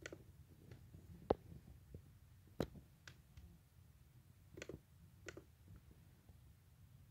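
Irregular clicks of a computer pointing device's buttons while browsing, about half a dozen sharp single clicks and a quick double click about four and a half seconds in, over a faint low hum. The loudest click comes about a second in.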